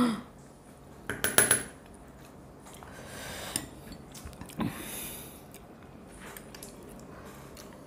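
A spoon clinking against a small glass chutney bowl and ceramic plates, with a quick run of clinks about a second in, then softer scattered taps and scrapes.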